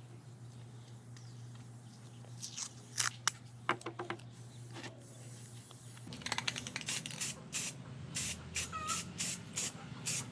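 A series of short hissing spray bursts, a few scattered at first, then about two a second from around six seconds in, over a steady low hum.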